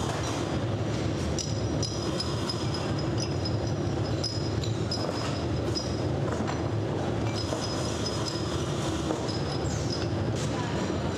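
Steady mechanical din of running machinery, with thin high squealing tones and a few light metallic clicks.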